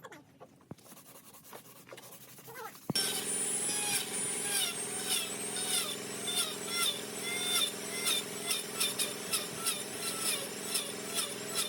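A power tool working wood comes on suddenly about three seconds in. It runs with a steady hum under a rhythmic pulsing of short pitched chirps, a few a second.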